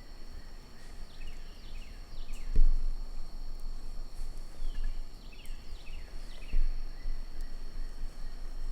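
Wind rumbling and buffeting on the microphone, with stronger gusts about two and a half and six and a half seconds in. Behind it, insects trill steadily at a high pitch and a bird repeats groups of short falling notes.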